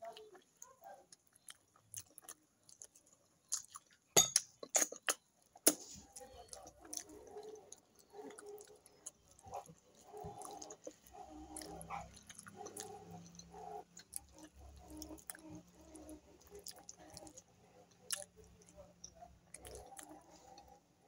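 Close-up chewing and wet mouth clicks of someone eating fish and rice with her fingers, with a few sharper clicks about four to five seconds in.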